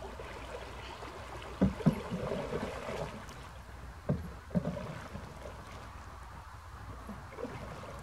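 Canoe paddle strokes in calm water: the blade goes in with a splash and gurgles as it is pulled through, in two close pairs, about a second and a half in and again about four seconds in, with a fainter stroke near the end.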